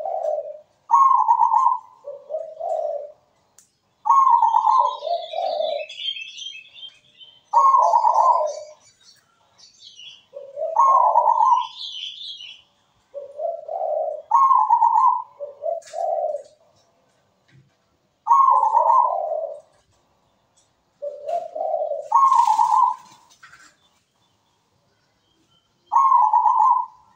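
Zebra dove (perkutut) cooing its song over and over, a phrase every three seconds or so, each opening on a higher note and dropping to lower, rolling ones. Faint high chirping comes between the phrases, mostly in the first half.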